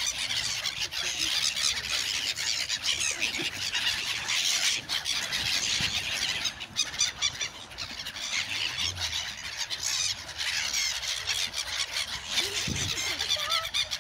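A large flock of gulls calling all at once, many high squealing cries overlapping without a break as the birds crowd in for bread.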